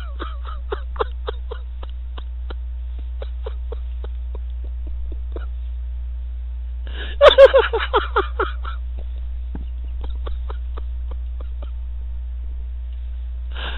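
A person laughing in short bursts over a chatroom voice connection. The laughter tails off in the first couple of seconds, and a louder burst comes about halfway through. A steady electrical hum runs underneath.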